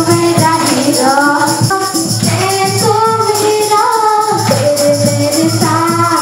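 A song: a singing voice carrying a melody over music with a steady beat.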